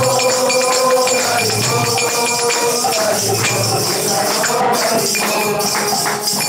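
Devotional kirtan: a group sings the response line of the chant, with small hand cymbals (kartals) jingling in rhythm and a drum beating low underneath.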